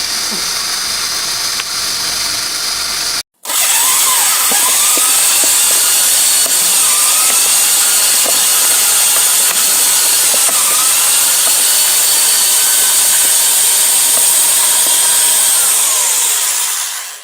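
Electric power drill running at speed with a corn cob spinning on its bit: a steady high whine with a slowly wavering pitch. It cuts out briefly about three seconds in, then runs on and dies away near the end.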